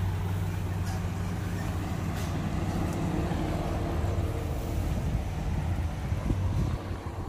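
Loaded dump truck's engine running steadily as the truck drives slowly past across a dirt lot.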